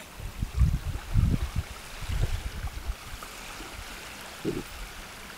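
Puppy digging angrily in sand with its front paws, making low scraping thumps in several bursts, with a short growl about four and a half seconds in.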